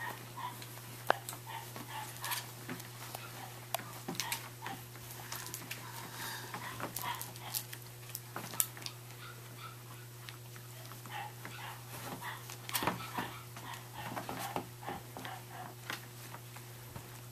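Scottish Terrier puppies at play: short high squeaks and whines among many small taps and scuffles of paws and toys on a blanket, over a steady low hum.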